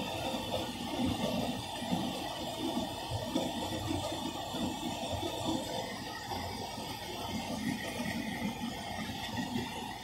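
Hotpoint Ultima S-Line tumble dryer running a distribution cycle: a steady rushing hum of the motor and turning drum, with an uneven rumble from the load tumbling inside.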